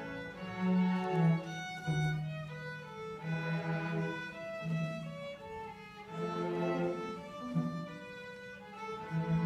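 High school orchestra's string section playing, violins carrying a melody over held low cello notes that change every second or so.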